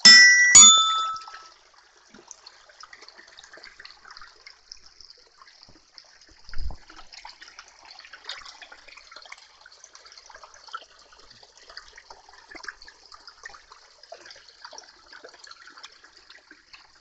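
Small spring-fed stream trickling and splashing over stones, a steady faint hiss. At the very start come two sharp ringing tones about half a second apart, the loudest sounds here, and a low thump about six and a half seconds in.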